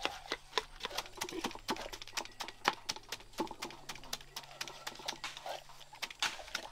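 Quick, irregular knocks and taps of a knife working watermelon flesh, chopping and mashing it so the juice runs out without a blender.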